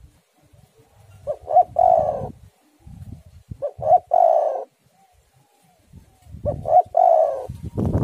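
Spotted dove cooing: three phrases about two and a half seconds apart, each a couple of short notes running into a longer, drawn-out coo.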